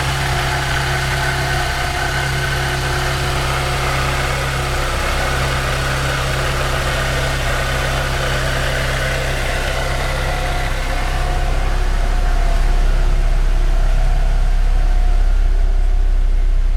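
Cosworth-supercharged 2008 Mazda MX-5's four-cylinder engine idling steadily. About two-thirds of the way through, the low drone grows louder while the higher sounds fade.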